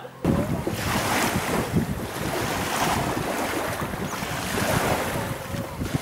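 Wind buffeting the microphone outdoors: a loud, rushing, rumbling noise that cuts in abruptly just after the start and carries on unevenly.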